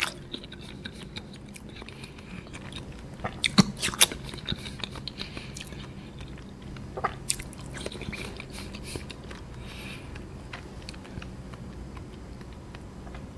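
A person biting into and chewing a block of firm agar-agar jelly, close to the microphone. A few sharp clicks stand out, the loudest about three to four seconds in and another about seven seconds in.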